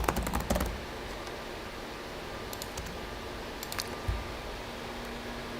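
Clicks of a computer keyboard and mouse: a quick flurry in the first second, a few more around three and four seconds in, and a dull thump just after four seconds.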